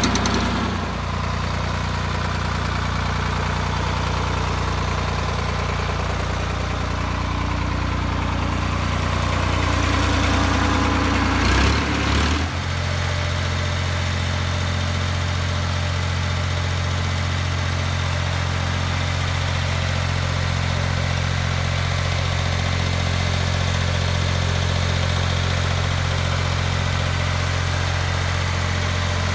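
Lamborghini 5CTL crawler tractor's engine idling steadily. About twelve seconds in the sound changes abruptly and then runs on at an even, steady idle.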